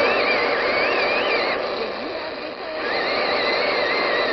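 Small portable AM/FM and TV-band radio giving off steady static hiss with a wavering high whistle, which breaks off about a second and a half in and comes back about a second later.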